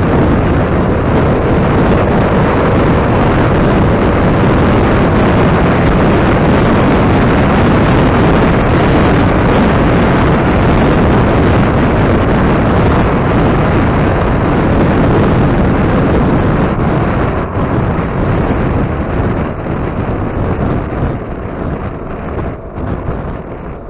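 Heavy wind rush on a windscreen-mounted action camera's microphone at riding speed, mixed with the Yamaha X-Max 250 scooter's single-cylinder engine and tyre noise. The rush is steady, then eases and turns uneven over the last several seconds.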